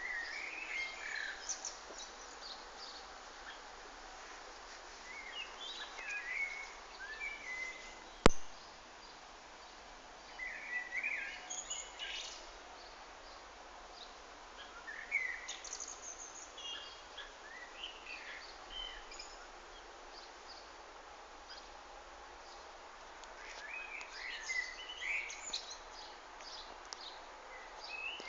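Songbirds chirping and calling in short scattered bursts over a faint steady hiss, with one sharp click about eight seconds in.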